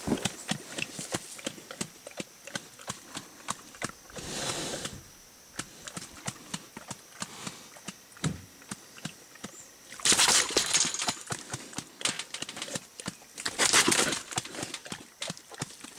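Feral pig moving about inside a wire-mesh cage trap: frequent sharp taps and clicks of hooves and wire, with three louder bursts of noise about four, ten and fourteen seconds in.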